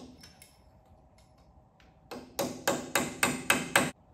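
Hammer striking metal: seven quick ringing blows, about four a second, starting about two seconds in, after a few faint clicks.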